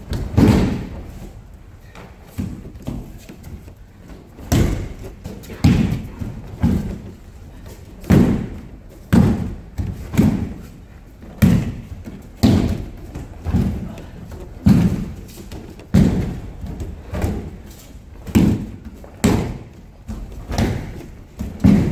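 Aikido breakfalls: attackers thrown one after another land on tatami mats, a heavy thud roughly once a second.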